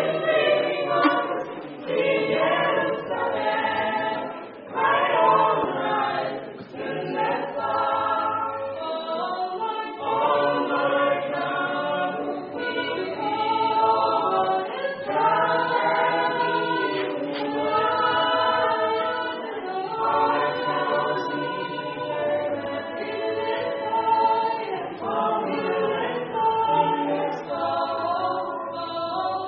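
Gospel vocal quartet singing a cappella in harmony, several voices together, continuing without a break.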